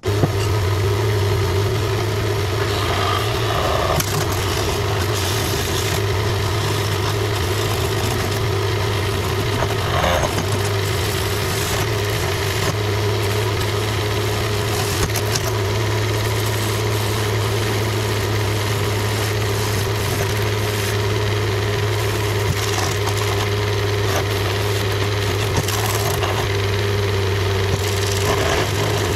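Small wood lathe switched on and running with a steady motor hum while a spindle blank spins between centres. A skew chisel cuts into the spinning wood now and then, adding short spells of scraping, shaving noise.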